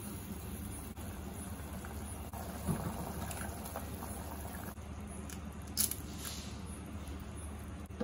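Masala water boiling in an open pressure cooker, as eggs are cracked and dropped into it: two brief soft cracks and plops, about three and six seconds in.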